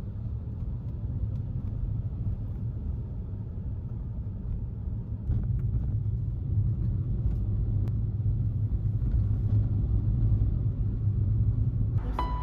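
Low steady rumble that grows louder about five seconds in, with a few faint ticks; piano music comes in at the very end.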